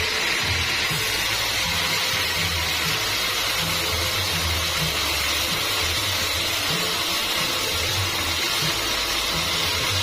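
Background music with a repeating low bass pattern, over a steady loud machine noise.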